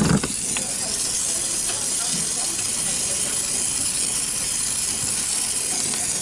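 Evaporative air cooler running close by, a steady rushing hiss of blown air, with a brief knock right at the start.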